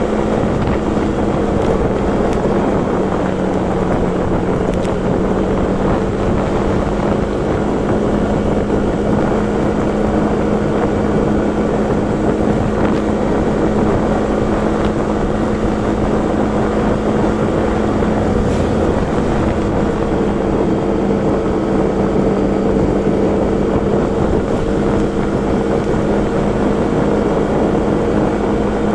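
Motorcycle engine running at a steady cruise, its note holding nearly constant with only slight changes in pitch, mixed with wind noise on the microphone.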